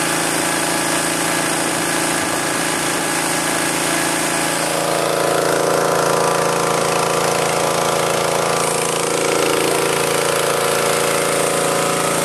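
Petrol-engine-driven high-pressure breathing-air compressor running steadily under load, the small engine and the piston compressor chugging together at a constant speed while filling a cylinder.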